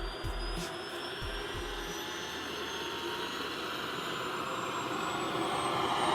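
Model jet turbine of a radio-controlled jet spooling up: a steady rushing roar with a high whine that rises steadily in pitch as it gets louder.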